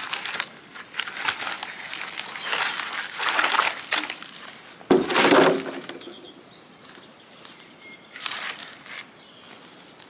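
Pear-wood logs being pulled from a pile and loaded into a wheelbarrow: repeated wooden knocks and scrapes, with the loudest thud about five seconds in as a log lands in the barrow, and another cluster of knocks near the end.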